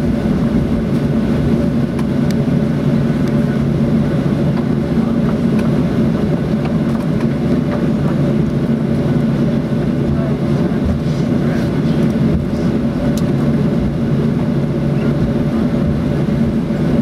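Steady cabin drone of a Boeing 737-800 taxiing, its CFM56-7 engines running at low power with a constant low hum, heard from inside the cabin over the wing.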